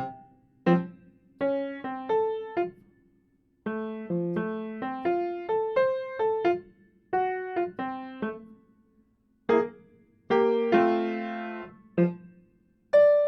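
Solo piano playing a simple, slow sight-read of an elementary etude in F major: short phrases of single notes and small chords, each note struck and fading, with brief pauses between phrases.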